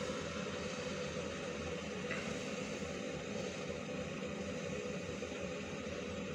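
Steady low hum with a hiss over it, unchanging throughout, with a faint short high sound about two seconds in.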